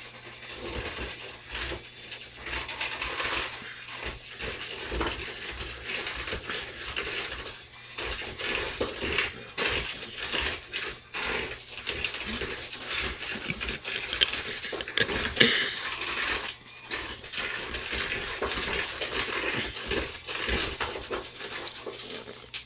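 Electric hand mixer running in a large bowl, creaming butter with white and brown sugar; a faint steady motor hum under an uneven churning and clattering of the beaters against the bowl, its loudness rising and falling.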